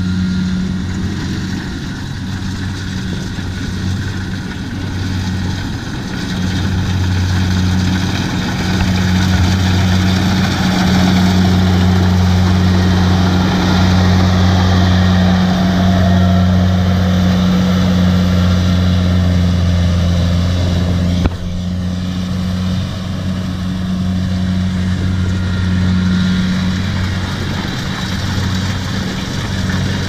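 Tracked rice combine harvester running steadily as it cuts and threshes, its diesel engine a deep steady drone under the clatter of the machinery. It grows louder toward the middle as the machine passes close, then drops abruptly a little after two-thirds of the way through.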